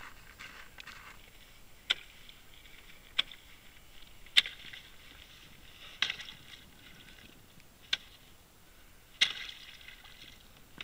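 A hatchet chopping a hole in ice: about seven sharp strikes, one every second and a half or so, the louder ones trailing off in a short crackle of breaking ice.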